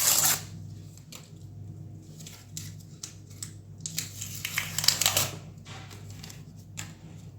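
Sticker pack wrapper being opened and handled: several short crinkling, tearing rustles, the loudest right at the start and again around four to five seconds in.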